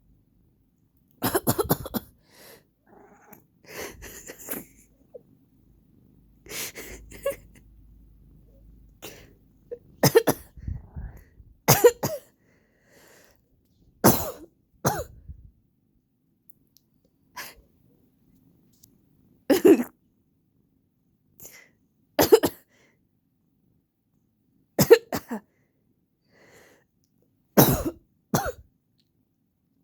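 A person coughing from allergies: about a dozen short coughs spaced a few seconds apart, some in quick pairs.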